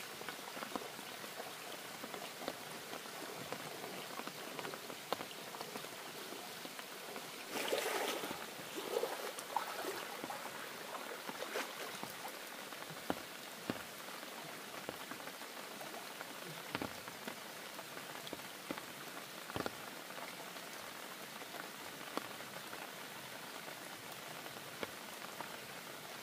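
Steady rain falling, with scattered drops pattering on a nearby surface. About a third of the way in there is a louder rustling, splashy stretch, and later two sharp knocks stand out.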